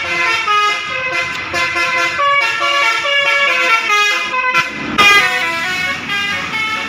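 A bus's Basuri telolet air horn, a multi-trumpet musical horn, playing a tune of stepped notes, with a sudden louder change about five seconds in.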